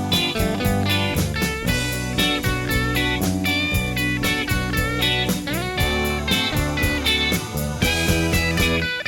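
Background music: a guitar-led tune with some sliding notes over a steady beat.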